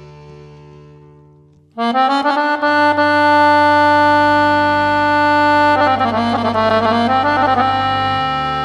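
Background music of held instrumental chords over a steady bass note. It fades low, then comes back in loud with a sudden chord about two seconds in, which is held for a few seconds before the notes begin to move.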